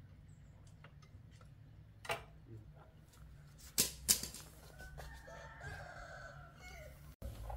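A rooster crowing: one drawn-out call in the second half. A few sharp knocks come about two seconds in and twice about four seconds in, and these are louder than the crow.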